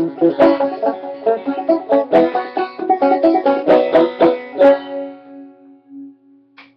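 Five-string banjo in sawmill tuning played clawhammer (frailing) style, finishing an old-time tune. The quick plucked notes stop a little under five seconds in, leaving the last low note ringing and dying away, followed by a couple of faint clicks.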